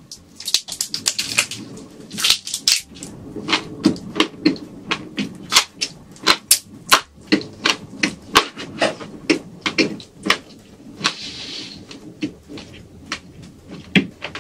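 Close-miked chewing of shrimp: a steady run of sharp, crunchy mouth clicks, about two to three a second, with a short hiss about eleven seconds in.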